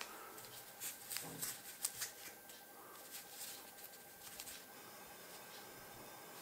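Light rustling and short taps of cardboard packaging as gloved hands lift a plastic power adapter out of its tray, busiest in the first three seconds, then fainter handling.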